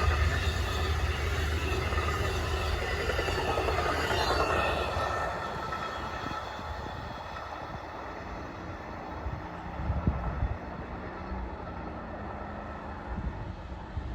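Amtrak Cardinal passenger train rolling past on the rails, its noise fading steadily as it moves away, with a few faint knocks near the end.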